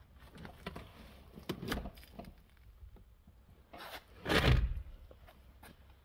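Rustling and scattered light knocks from someone moving around and handling the camera inside a stripped car interior, with one much louder rushing scrape about four and a half seconds in.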